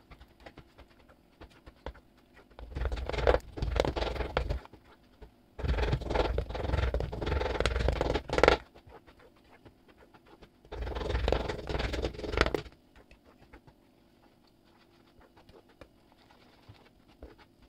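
A spatula mashing and stirring strawberries as they cook down in sugar for jam in a nonstick pan, in three bouts of two to three seconds each with quiet between. The strawberries are still somewhat firm and being squashed to soften them.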